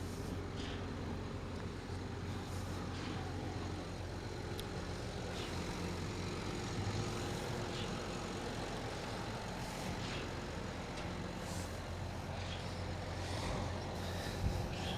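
Heavy diesel truck engine running steadily with a low hum, with a few faint scattered clicks and knocks.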